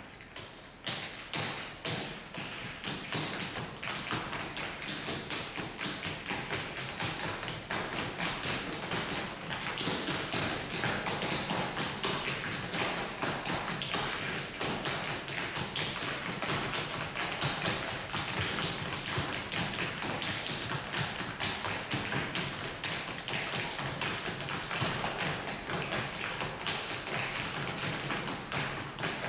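Several dancers' tap shoes striking the floor in quick, dense rhythms. The taps begin suddenly and keep up a steady, busy stream of clicks.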